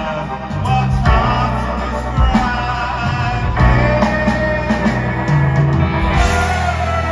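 Rock band playing live with electric guitar, bass and drums, and a male voice singing.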